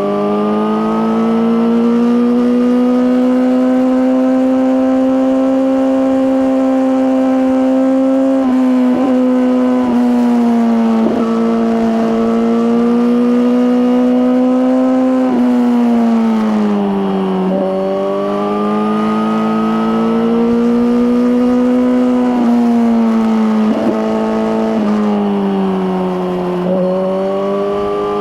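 2023 Suzuki GSX-R1000R's inline-four engine running through an Akrapovic slip-on exhaust under way, its note rising and falling with the throttle. Several brief breaks and steps in pitch mark gear changes.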